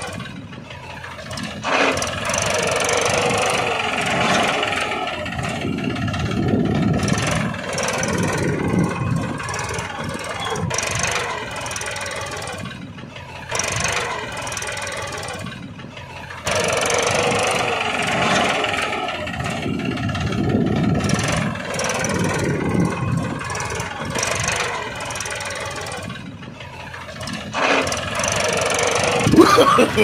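Small engine of a homemade mini Mahindra tractor running steadily while it pulls a trolley loaded with children, with voices mixed in. The level jumps abruptly a few times.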